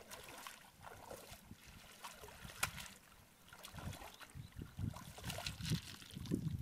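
Shallow paddy water sloshing and splashing around a person's legs as she wades through it, in uneven steps that come faster in the second half.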